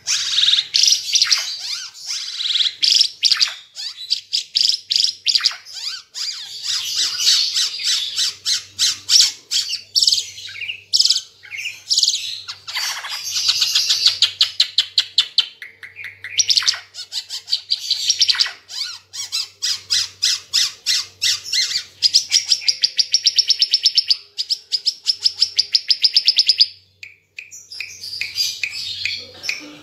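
Ara Timor (red-eyed) songbird singing energetically: long runs of rapid, high-pitched chattering notes repeated many times a second, with trills and short whistled phrases mixed in, nearly without pause apart from a short break near the end.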